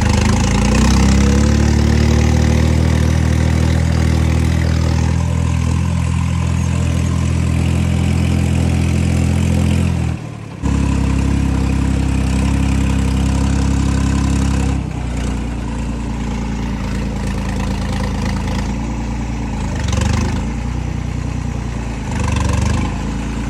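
New Holland 3630 tractor's diesel engine running hard and loud at steady revs while it drives an 8-foot rotavator through field soil. The revs climb in the first second or so, there is a short break about ten seconds in, and the engine note drops and roughens about fifteen seconds in.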